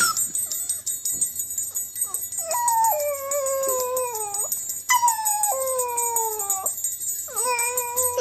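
A puppy howling three times, each howl about two seconds long, breaking from a higher note to a lower one and sliding down in pitch; the third howl starts near the end. A small bell on a dangled toy jingles steadily under the howls.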